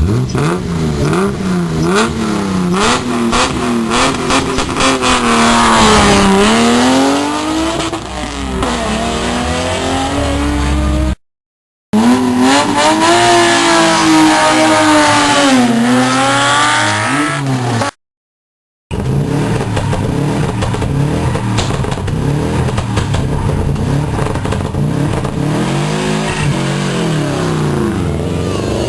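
Rally car engines revving hard, the engine note sweeping up and falling back repeatedly through gear changes, with sharp crackles in the first few seconds. There are three separate passes, broken by two short silences.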